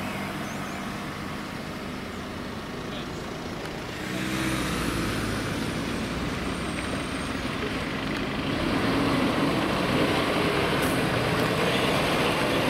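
Diesel engines of heavy fire engines running as the trucks move slowly, growing louder about four seconds in and again about nine seconds in.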